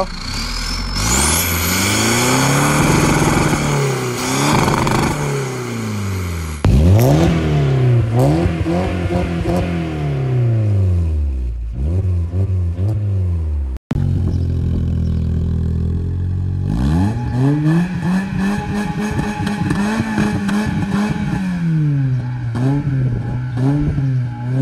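Car engines revved again and again, heard close to the exhaust tailpipe across several short clips: each rev climbs in pitch and falls back, with abrupt cuts between clips about 7 and 14 seconds in. A high rising whistle sounds in the first second or two.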